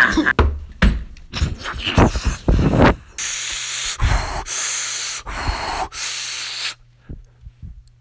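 A man's panicked, hissing breaths: a few short gasps, then a run of long, loud breaths in and out, with a low steady hum beneath them. The breaths stop about a second before the end.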